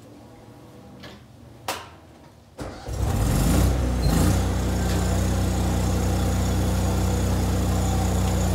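Air compressor switching on almost three seconds in, winding up for about a second and then running steadily, building air pressure for the pneumatic impact wrench. A sharp knock comes a little before it starts.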